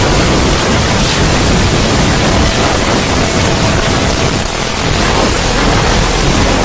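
A "void" sound effect: a loud, steady wash of noise across all pitches, with no tones or separate events and a brief dip in level about four and a half seconds in.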